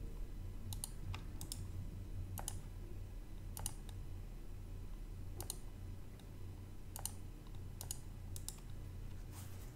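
Computer mouse clicking: about ten irregular, sharp clicks, many coming as quick press-and-release pairs, over a faint steady low hum.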